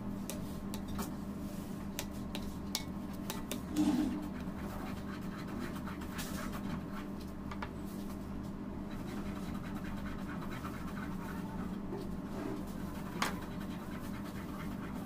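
A long cake knife scraping and carving a soft sponge cake, with scattered light clicks and scratches, over a steady low background hum.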